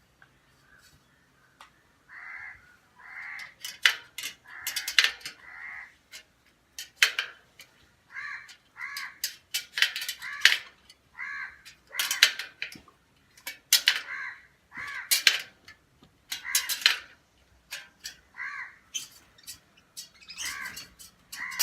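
Crows cawing over and over, short harsh calls about once a second, with sharp clicks in between.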